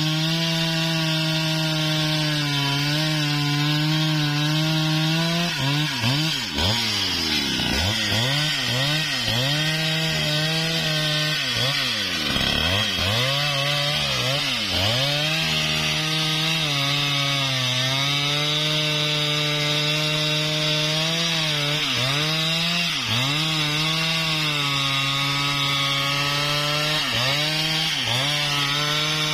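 Husqvarna 395XP two-stroke chainsaw running at high revs while its bar cuts through a sengon tree trunk. The engine note drops sharply and climbs back several times as the saw loads in the cut or the throttle is eased, most deeply about 7 and 12 seconds in.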